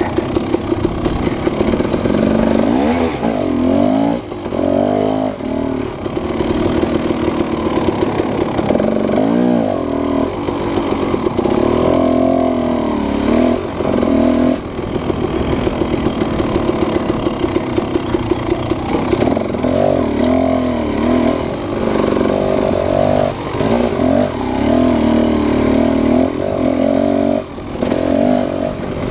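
Husqvarna 300 two-stroke dirt bike engine, heard from on board, revving up and down over and over as it is ridden along a rough, twisting trail.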